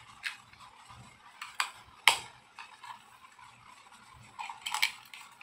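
Small plastic toy pieces being handled and clicked together, a few scattered light clicks, the sharpest about two seconds in and a quick run of them near the end.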